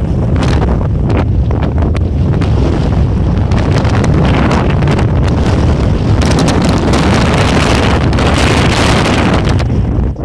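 Strong wind buffeting the camera microphone: a loud, rumbling roar of wind noise that swells and eases.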